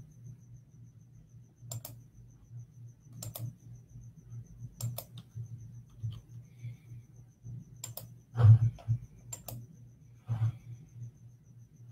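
Scattered clicks and taps on a computer keyboard and mouse, a second or two apart, with the loudest cluster about eight and a half seconds in, over a low steady hum.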